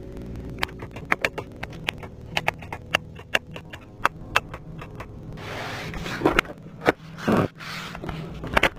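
A run of small sharp clicks from cabin switches and controls in a Mercedes-Benz GLB 200 being worked by hand, over a low steady hum. In the last few seconds comes rustling and sliding with a few louder knocks as a storage compartment is pulled open.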